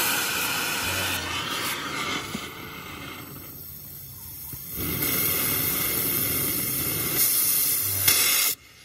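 Gas cutting torch hissing steadily as it cuts steel, weaker for about a second and a half midway, then shut off abruptly near the end.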